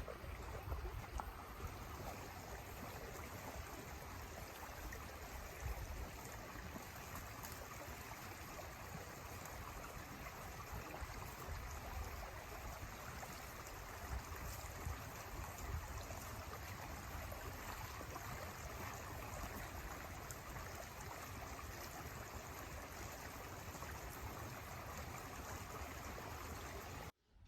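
Steady rush of running water from a creek, with uneven low rumble of wind on the microphone; cuts off suddenly near the end.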